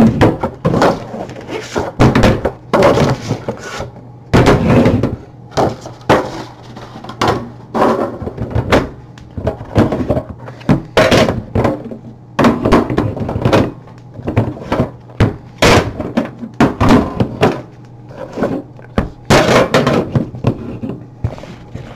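Cardboard trading-card boxes being handled on a table: outer sleeves sliding off and boxes set down and stacked, giving a run of irregular scrapes and sharp thunks.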